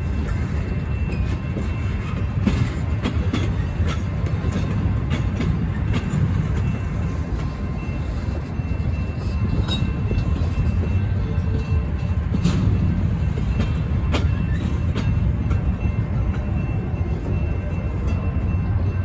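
Empty double-stack intermodal well cars of a freight train rolling past: a steady low rumble of steel wheels on rail, broken by irregular clicks and clanks.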